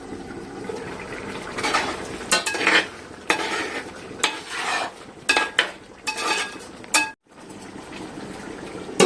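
A metal lid being lifted and set back on a cooking pot: a series of clinks and clatters of metal on metal, several ringing briefly, over a faint simmer.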